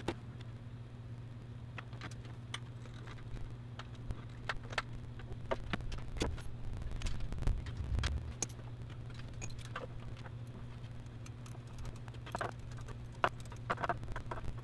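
Scattered metallic clinks, taps and knocks of hand tools and engine parts being handled while a bolt is fitted and tightened, with a steady low hum underneath.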